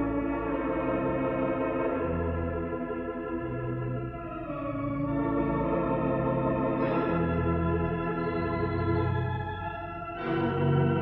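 Hilsdon theatre pipe organ playing sustained chords over a bass line whose notes change about every second. Near the end the sound drops briefly, then comes back louder on a fuller chord.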